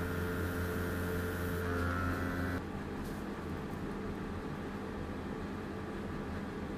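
Airbrush compressor running with a steady motor hum and air hiss, cutting off suddenly about two and a half seconds in; a lower, steady background hum remains.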